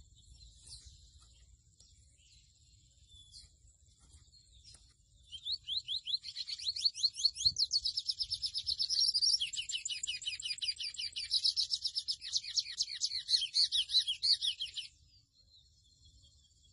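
A pico de plata azul seedeater (mochuelo) singing one long, fast, high-pitched song of rapidly repeated down-slurred notes. It starts about five seconds in and stops abruptly about ten seconds later.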